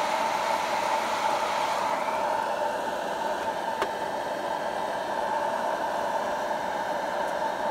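Electric coffee roaster running steadily with beans inside: an even whirring hiss with a strong hum-like band in the middle. The airy top of the hiss softens about two seconds in, and there is a single light tap about halfway through.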